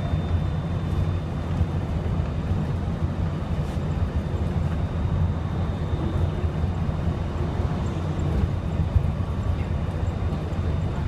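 Walt Disney World monorail train running at steady speed, heard from inside the car: a steady low rumble with a faint high whine above it.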